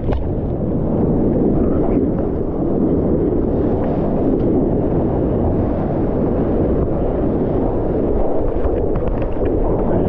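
Sea water rushing and sloshing around a microphone at the waterline as a bodyboarder paddles, with wind buffeting the microphone; a steady low rushing with a few small splashes.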